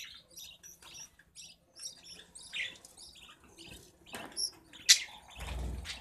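Budgerigars chirping in a nest box while a parent feeds the chicks: a rapid run of short, high chirps, several a second. A sharp click about five seconds in, followed by a low rumble.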